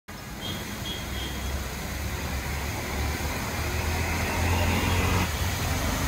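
Steady road-traffic rumble with a vehicle swelling past about five seconds in, over an even hiss of fountain jets spraying.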